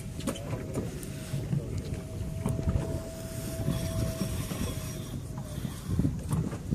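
Fishing boat's engine running steadily at idle, a low rumble, with a thin steady whine over it that stops about five seconds in.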